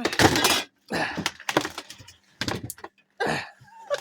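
A run of cracks, knocks and scrapes, a few each second, from the ice-packed freezer compartment of an old refrigerator being pried open and handled.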